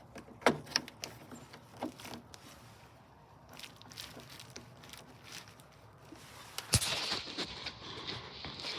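Power plug pushed into a socket: two sharp clicks about half a second in and a few fainter ticks after. Near the end comes a loud knock, then a steady hiss. No fan or pump starts up, because the diesel heater is not powering up.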